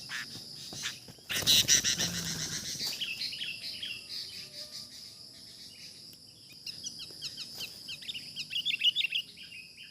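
Sooty-headed bulbuls chattering in quick runs of short calls, densest near the end, over a steady high insect drone. A loud rustling burst comes about a second in.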